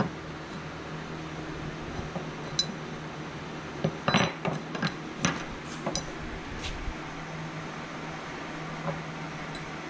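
Steel pinball playfield mount brackets being handled and set down on a wooden workbench: a few scattered metal clinks and light knocks, the loudest about four seconds in.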